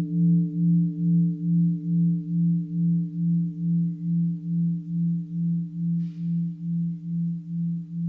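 Mindfulness bell ringing on after a strike: one low hum with a few higher overtones, wavering about three times a second and slowly fading.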